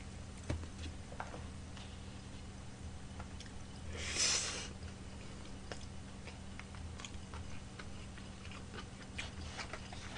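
Quiet eating sounds: chewing, with small scattered clicks of wooden chopsticks against plastic takeout trays, and a short hissing noise about four seconds in, over a faint steady low hum.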